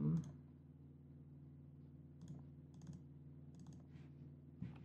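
Faint clicks of a computer mouse, a handful scattered through, some in quick clusters, over a steady low electrical hum.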